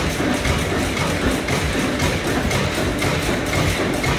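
Ronaldson & Tippett stationary engine running, a steady rhythmic mechanical clatter, with background music mixed over it.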